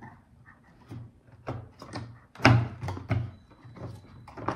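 Cardboard cupcake stand being pressed together, its tiers pushed down onto the slotted cardboard frame: a run of short cardboard knocks and scrapes, the loudest about two and a half seconds in.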